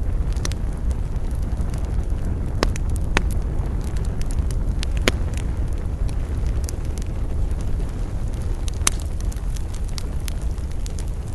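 Campfire burning with a steady low roar of flames and scattered crackles and sharp pops from the wood, the loudest pops about five seconds and nine seconds in.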